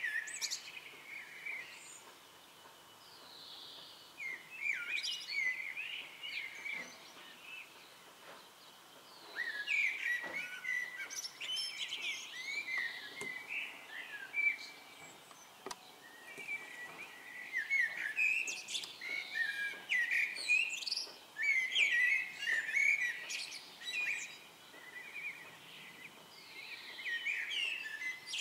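Small songbirds chirping and singing, many short high calls and phrases overlapping, with a quieter spell of a few seconds about a quarter of the way in.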